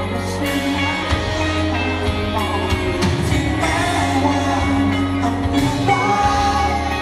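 Live band playing a song with singing: drums and a steady bass under held vocal and guitar notes, heard through the concert sound system.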